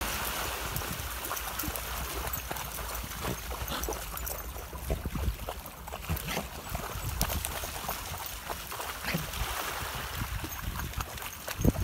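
Shallow sea water lapping and trickling around rocks at the water's edge, with many small splashes from dogs wading through the shallows.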